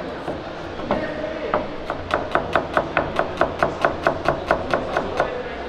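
Chef's knife slicing a small red onion on a plastic cutting board, the blade knocking the board with each cut: a few separate knocks at first, then a quick, even run of cuts, about five a second, from about two seconds in until near the end.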